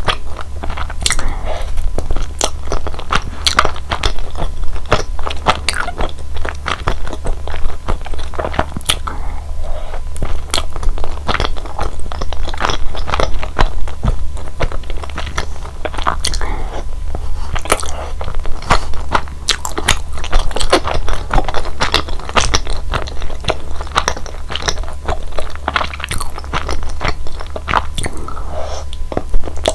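Close-miked chewing of chewy mitarashi dango, glutinous rice-flour dumplings in a sticky soy glaze: a dense, irregular run of wet mouth clicks and smacks, with a low steady hum underneath.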